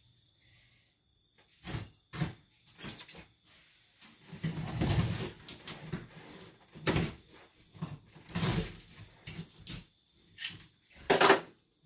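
Things being handled and shifted by hand: irregular knocks and scrapes, with a longer scrape about four to five seconds in and a sharp knock near the end.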